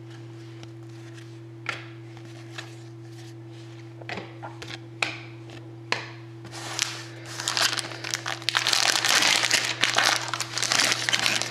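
Foil trading-card pack wrapper crinkling and tearing as it is opened, starting about halfway through and loudest near the end. Before that, a few light taps of cards being handled over a faint steady hum.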